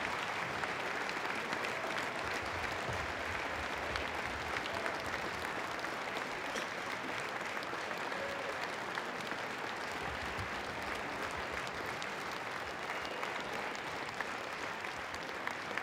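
Large crowd clapping steadily in a standing ovation.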